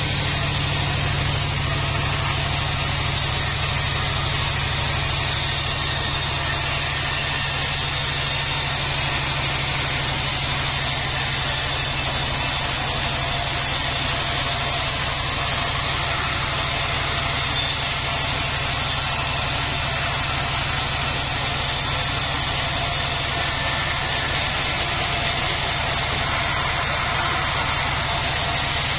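Band sawmill running steadily, a constant low machine hum with no change in load.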